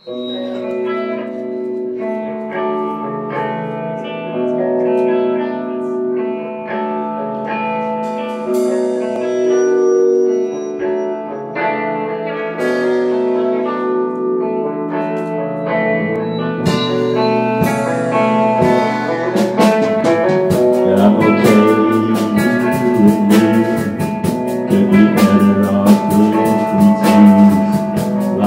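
Live rock band playing an instrumental passage: electric guitars ring out chords, then bass and drums come in a little past halfway and the full band plays on, louder, with busy cymbals.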